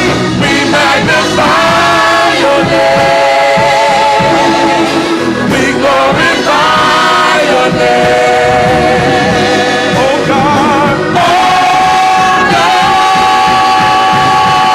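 Gospel worship song: singers holding long notes with vibrato over music, moving between pitches every second or two, then holding one long note through the last few seconds.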